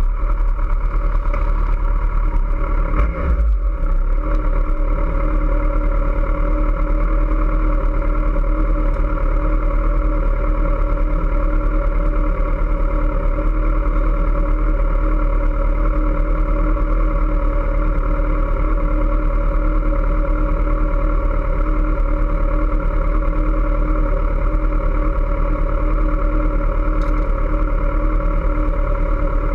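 Kawasaki ZX-14R's 1441 cc inline-four idling steadily while the bike stands still.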